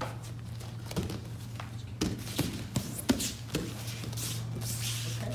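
Bare feet stepping, kicking and dropping onto foam martial-arts mats as two children shadow a punch-and-kick combination ending in a takedown shot: a quick run of taps and thumps about one to four seconds in, over a steady low hum.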